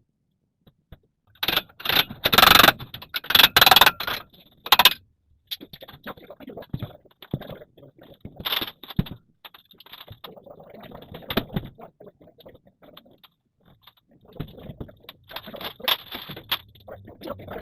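Irregular clattering and scraping, with a dense run of sharp knocks in the first few seconds, then lighter scattered knocks.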